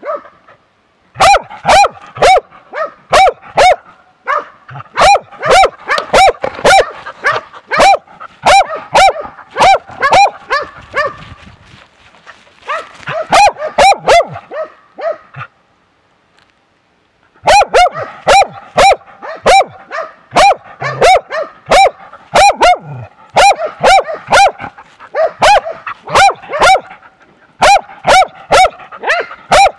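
A hunting dog baying at a bear, barking in rapid loud series very close to the microphone, about two to three barks a second, with a silent gap of about two seconds past the middle.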